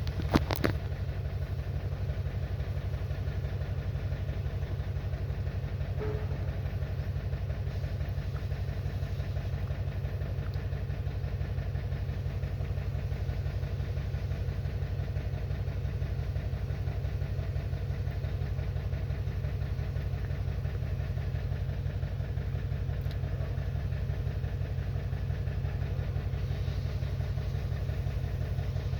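2021 Toyota Camry engine idling with a misfire, a steady low pulsing throughout; the misfire comes from an internal ECM fault in the ignition coil control circuit. A couple of sharp clicks just after the start.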